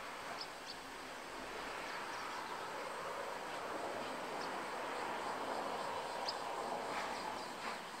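Steady outdoor background noise that swells through the middle and eases off near the end, with a few faint, short, high chirps scattered through it.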